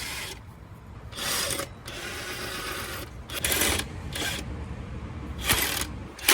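Socket ratchet wrench clicking in several short runs while pulley bolts are tightened.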